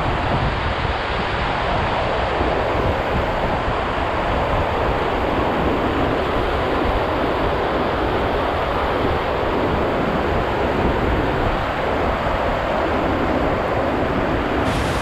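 Steady rush of shallow river water pouring over a concrete weir, an even white-water roar with a rumble underneath.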